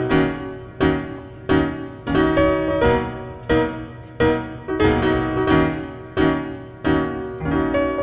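Background piano music: chords struck at a steady pace, about three every two seconds, each ringing out and fading.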